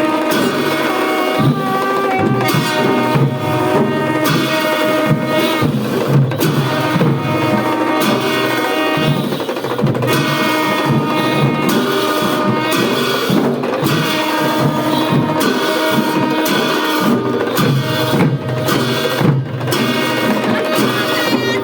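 Traditional Newar processional music for the Bhairab dance: drums and sharp struck percussion keep up a dense beat under a melody of held, pitched notes.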